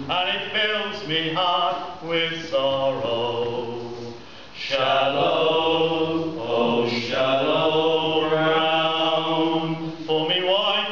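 Group of men singing a sea shanty unaccompanied, in harmony, with long held notes and a short break for breath about four seconds in.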